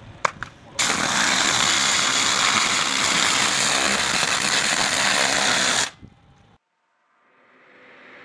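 High-pressure washer jet blasting a wooden pallet: a loud, steady hiss of spray that starts about a second in after a few light clicks and cuts off suddenly near six seconds. A faint sound rises slowly near the end.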